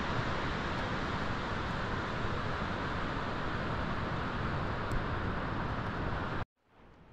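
Steady rushing of a mountain river, an even hiss that cuts off abruptly about six and a half seconds in, followed by much quieter background.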